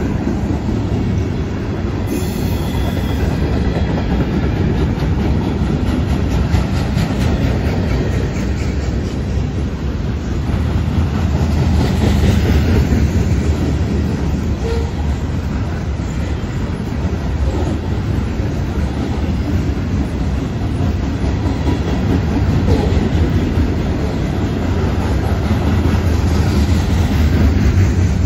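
Freight cars of a passing freight train rolling by: steel wheels rumbling and clacking steadily on the rails.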